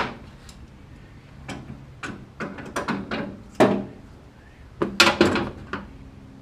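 Irregular knocks and clatters of hand tools and parts being handled while working on an engine, with a sharp knock at the start and a loud cluster of clacks near the end.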